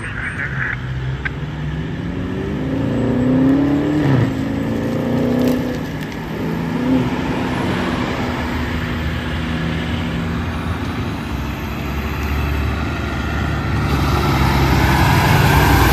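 Diesel engine of a 2005 American LaFrance Eagle tower ladder fire truck accelerating, its pitch rising twice in the first half as it revs up through the gears. It then runs steadily and grows louder as the truck approaches.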